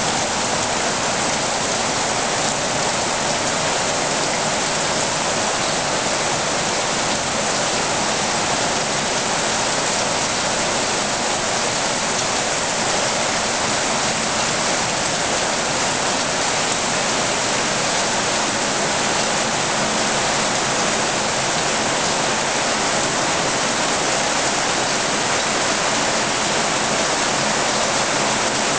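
Heavy rain falling steadily, splashing on a swimming pool and on wet paving.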